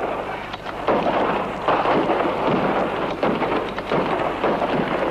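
Added battle sound effects: a continuous rumbling and crackling din of gunfire and shell bursts, swelling about a second in.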